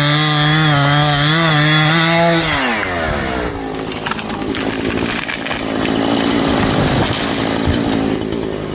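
Chainsaw running at high, steady revs, then its engine note drops about two and a half seconds in and goes on rougher and noisier.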